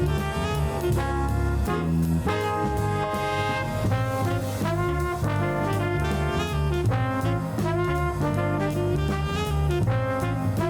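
Background music: jazzy brass-band music with horns over a steady bass line and drums.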